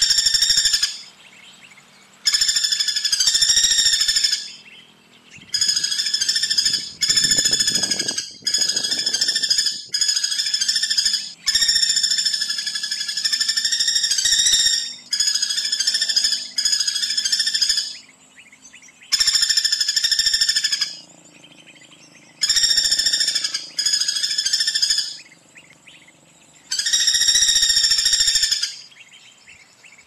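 Common flameback woodpecker calling: a run of rapid, rattling trills, each one to three seconds long, repeated about a dozen times with short pauses between them.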